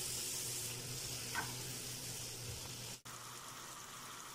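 Onion, tomato and spice masala sizzling and bubbling in oil in a frying pan as it is fried down. The sound drops out abruptly about three seconds in, then carries on as a slightly quieter sizzle.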